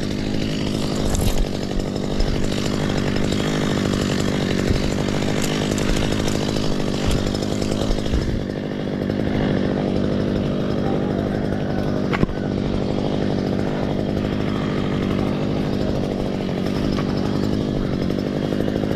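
A chainsaw engine running steadily without a break, its pitch holding even, with a single sharp click about two-thirds of the way through.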